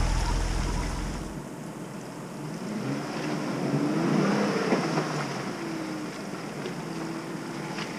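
Heavy wind rumble on the microphone that cuts off about a second and a half in. Then a Jeep Cherokee Trailhawk's engine revs up and down as it works slowly through a muddy, water-filled trail rut.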